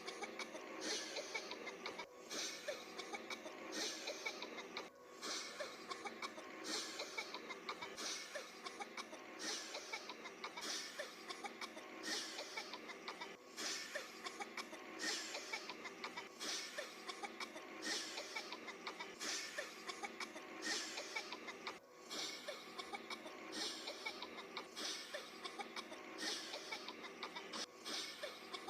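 Short, breathy coughs repeating about once a second throughout.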